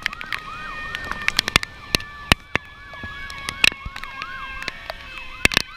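A distant emergency-vehicle siren in yelp mode, its pitch rising and falling about four or five times a second, with many sharp taps and clicks over it.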